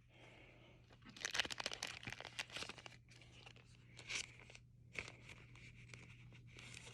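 Faint crinkling and rustling as trading cards and their plastic packaging are handled, in a cluster of small crackles for a couple of seconds, then a few single ones.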